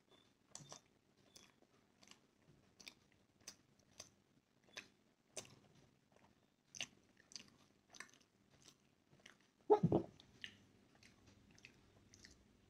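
Close mouth sounds of someone chewing steamed momos: soft, wet clicks and smacks about twice a second. There is one louder short burst of noise about ten seconds in.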